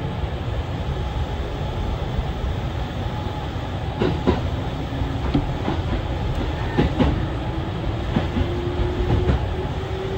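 Kintetsu electric train running, heard from inside the front car: a steady low rumble with wheels clacking over rail joints and points, several sharp clacks from about four seconds in, and a faint whine that rises gently near the end.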